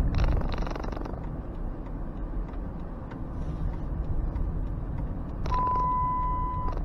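Van's engine and road noise heard from inside the cabin while driving through a turn, a steady low rumble. Near the end a steady high electronic beep sounds for just over a second.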